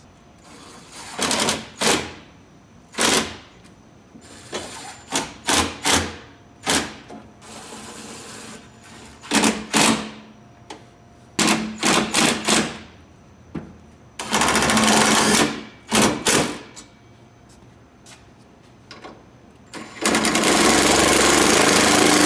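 Power tool, likely a cordless impact driver, driving fasteners: a string of short sharp bursts and knocks, then two longer loud runs, one about 14 seconds in and another from about 20 seconds in.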